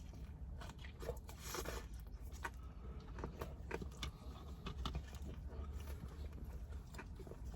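Someone chewing a bite of a chicken-tender sub with salad: faint, irregular crunches and wet mouth clicks over a low steady hum.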